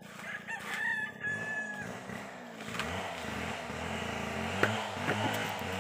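A rooster crows once in the first two seconds. From about three seconds in, an engine revs up and down repeatedly, with a sharp knock partway through.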